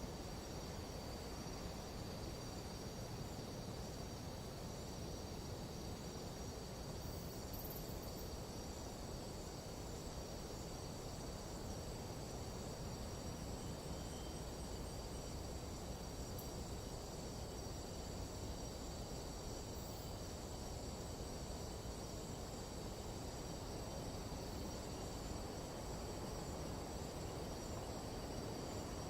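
Nighttime tropical jungle insect chorus: many insects holding a steady, high-pitched ringing on several pitches at once, over a steady low rush of background noise.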